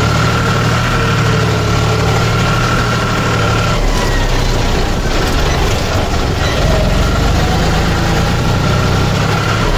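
John Deere 5310 tractor's three-cylinder diesel engine running steadily, heard from the driver's seat. A thin whine over the engine stops about four seconds in, and the engine note shifts at the same moment.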